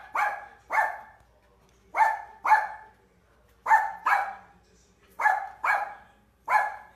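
Small dog barking in short, sharp yaps, in four quick pairs about a second and a half apart and a single bark near the end.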